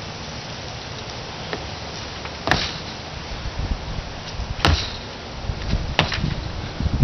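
Feet stepping and landing on a wooden deck: three sharp thumps, about two and a half, four and a half and six seconds in, with lighter steps and shuffles between them, over a steady background hiss.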